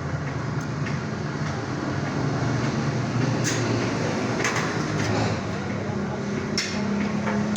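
Workshop lathe running steadily with a low hum that shifts in pitch about two-thirds of the way in. A few sharp metallic clicks are heard over it.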